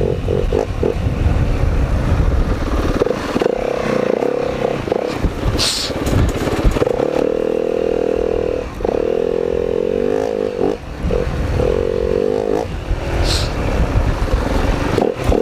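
Four-stroke dirt bike engine running at low, uneven revs on a slow trail ride, the revs rising and falling. A couple of short hissing swishes come through, about six seconds in and near the end.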